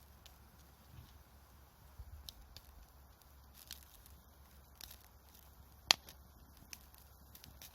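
Wood campfire crackling with sparse small pops, and one sharp loud pop near six seconds in.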